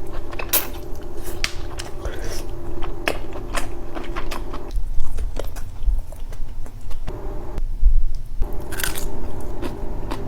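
Close-miked mukbang eating sounds: a person biting and chewing seafood boil, with a string of sharp wet clicks and crackles.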